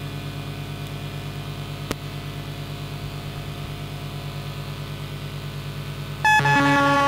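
Low hum from a modular synthesizer rig, pulsing about four to five times a second, with one click about two seconds in. Near the end a loud synthesizer drone of several steady pitched tones cuts in abruptly, from the modular synth fed through a Korg Monotron Delay.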